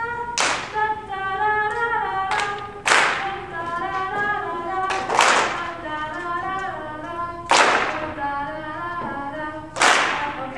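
Fifth-grade school band playing a slow melody in sustained, stepwise notes, with a percussion crash about every two and a half seconds, five in all.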